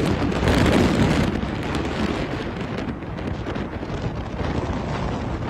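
Wind blowing hard across the microphone, a steady rough rush that is loudest about a second in.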